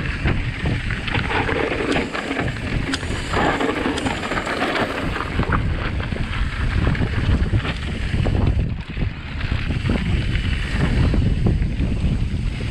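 Wind buffeting the microphone while riding a mountain bike down a dirt trail, with the tyres rumbling over the ground and frequent clicks and rattles from the bike; the noise drops briefly a little under nine seconds in.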